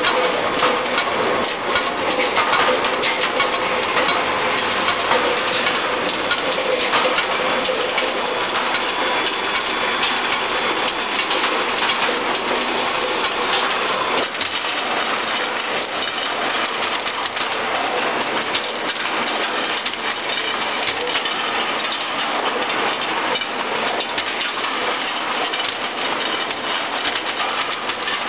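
Skew rolling steel-ball mill running, rolling red-hot steel bar into balls: a steady, dense metallic clattering and clinking, its tone changing slightly about halfway through.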